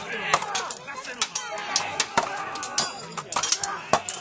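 Mock-battle melee: irregular sharp clacks and clashes of hand weapons, a few each second, over men shouting.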